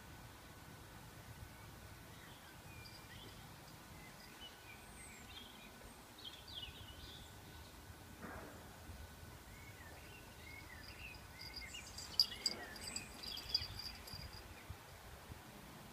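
Faint outdoor ambience: birds chirping in short rising and falling notes while an insect trills in high, broken runs, with a few sharp clicks near the end.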